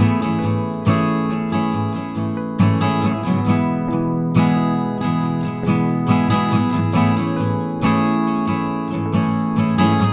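Music: acoustic guitar strumming chords in a steady rhythm, with no singing.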